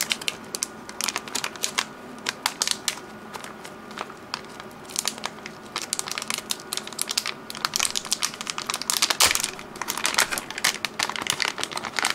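Metallized anti-static shielding bag crinkling in the hands as a circuit board is worked out of it: irregular crackles, with a couple of quieter gaps.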